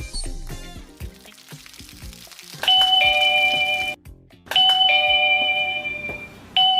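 Electronic two-note "ding-dong" chime from a wireless doorbell receiver, a higher note followed by a lower one. It sounds three times in quick succession from a few seconds in, each one cut off abruptly as the next begins or the tune stops.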